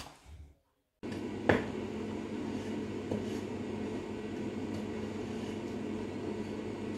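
Steady low hum of background noise, with a single sharp knock shortly after it begins.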